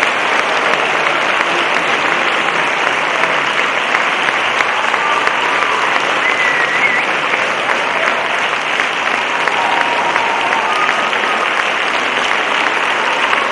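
Theatre audience applauding steadily at the close of a dance performance, with a few faint calls rising above the clapping.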